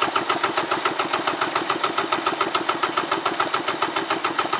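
1994 Polaris SL 750 three-cylinder two-stroke engine being cranked over for a compression test of its center cylinder, with an even chugging of about ten pulses a second. The gauge builds to about 150 psi on that cylinder.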